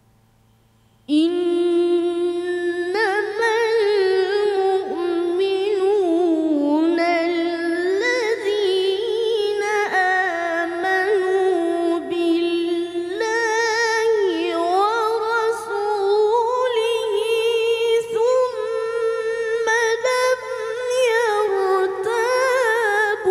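A boy qari reciting the Quran in melodic tilawah style: a high solo voice, unaccompanied, holding long ornamented notes with wavering runs in several long phrases. It comes in about a second in, after a moment of near silence.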